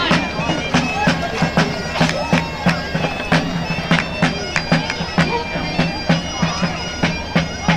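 Great Highland bagpipes playing a march over their steady drones, with a drum striking about twice a second.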